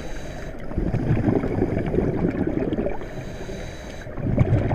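Churning, gurgling water with an uneven rush, dipping briefly about four seconds in and then swelling again.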